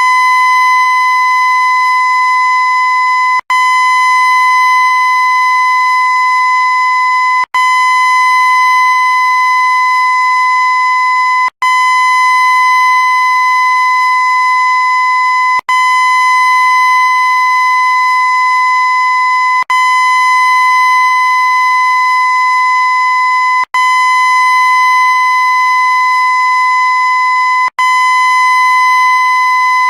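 A loud, steady high-pitched tone held at one pitch, played as a loop: each stretch lasts about four seconds, cut by a split-second gap before the next starts, seven times over.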